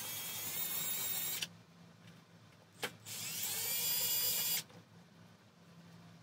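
Cordless drill spinning a step drill bit in the holes of a sheet-metal pizza pan, deburring them, in two short runs. The second run rises in pitch as the motor speeds up, and there is a single click between the two runs.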